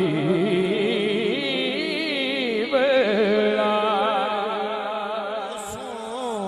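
Male voice singing a naat into a microphone in a long, drawn-out wavering line without words, over a steady held drone that comes in about halfway through.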